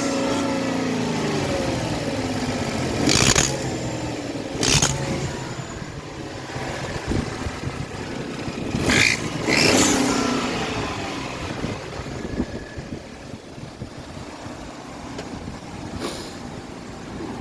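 Ford F-150 engine blipped several times, each rev falling back toward idle. The truck has an exhaust leak.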